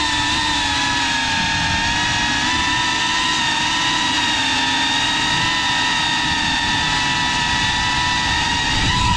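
Cinewhoop FPV drone's brushless motors and ducted propellers whining at a nearly steady pitch under a constant cruising throttle, with a rough rumble of prop wash underneath.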